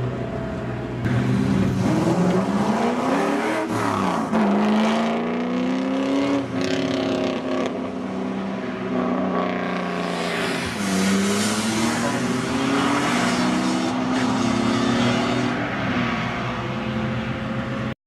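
Supercar engines accelerating hard, the engine note climbing and then dropping at gear changes: one climb ends about four seconds in, another about six and a half seconds in, and a longer climb runs from about eleven seconds in.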